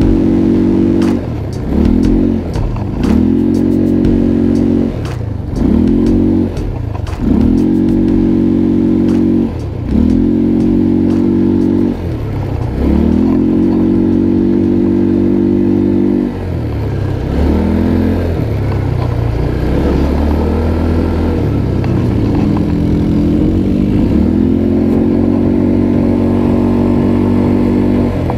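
Quad ATV engine revving again and again as the throttle is opened and let off. The pitch climbs quickly, holds steady for a second or two, then falls away. In the second half the steady pulls last longer. Sharp clicks and rattles sound over the engine in the first few seconds.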